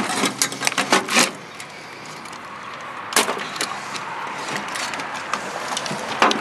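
Hands pulling and handling wiring on an old FM receiver's circuit board and metal chassis: a quick run of clicks and rattles in the first second, then scattered single clicks over a steady background hiss.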